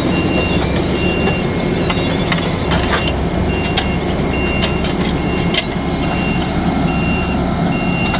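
Diesel engines of road-paving machinery running steadily, with a reversing alarm beeping about once a second and a few short metal clanks around the middle.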